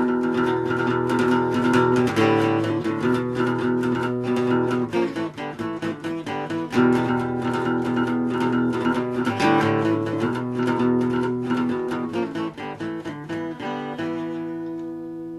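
Acoustic guitar playing a quick run of picked notes and chords, ending on a final chord left to ring out and fade.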